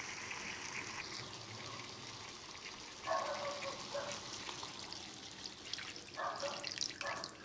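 Water poured into a hot pan of fish frying in spiced masala, in two pours, about three and about six seconds in, over a faint sizzle. This adds the water for the curry's gravy after the masala-coated fish has been fried.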